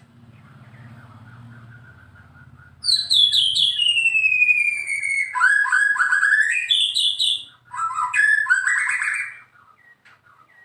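White-rumped shama (murai batu) singing: about three seconds in, a loud long whistle that slides down in pitch, then quick varied phrases that stop a second before the end. A faint low hum is under the opening seconds.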